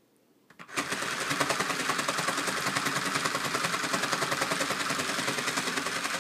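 Battery-powered Sew Cool toy felting sewing machine running, its threadless needles punching in a fast, even chatter that starts about half a second in and stops suddenly near the end. It is working on regular woven fabric, which it only punches holes in and does not felt together.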